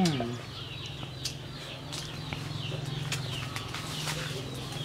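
Small birds chirping over and over in short, falling chirps above a steady low hum, with a few faint clicks.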